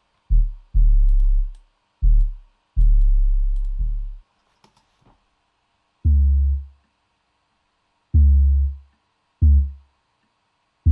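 Deep 808 bass notes played alone, about eight at uneven spacing, each dying away with silence between them. Some notes slide in pitch as they start. Faint clicks come in the gaps.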